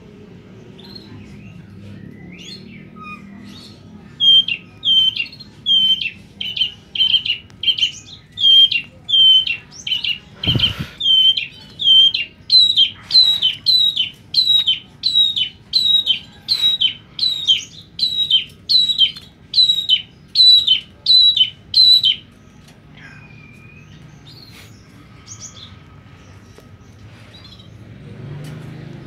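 A caged half-black-headed long-tailed shrike calling: a long run of loud, evenly repeated notes, each dropping in pitch, about three every two seconds for some eighteen seconds before stopping. A single knock sounds about ten seconds in, and a few softer calls come before and after the run.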